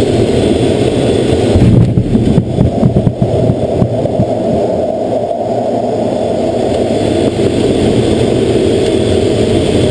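F/A-18 jet engine and airflow noise heard inside the cockpit, broken about two seconds in by a run of heavy jolts and thumps as the jet touches down and is arrested on the aircraft carrier deck. The engine then runs steadily after the stop.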